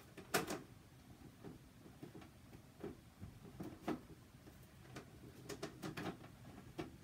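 A scatter of light clicks and knocks from small objects being handled. The sharpest pair comes about half a second in, with more spread through the rest and a cluster near the end.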